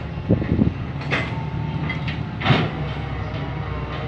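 Hitachi EX301 long-arm excavator's diesel engine running steadily under load, with four sharp clanks in the first two and a half seconds.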